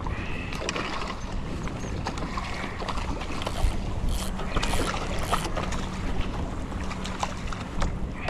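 A hooked sheepshead splashing and thrashing at the surface beside a kayak, with a cluster of splashes about halfway through. Short knocks and clicks of gear being handled run throughout.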